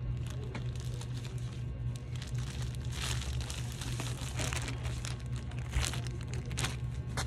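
Clear plastic bags crinkling and rustling as they are handled and opened, in quick irregular crackles that get busier from about three seconds in, over a steady low hum.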